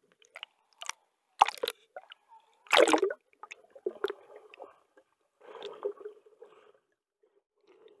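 Exhaled air bubbling and gurgling, heard through a camera held underwater, with irregular bursts; the loudest come about a second and a half in and just before three seconds.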